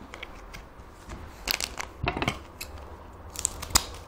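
Foil wrapper of a trading-card pack crinkling and crackling as it is handled, in two clusters of short crackles: one about a second and a half in, another near the end.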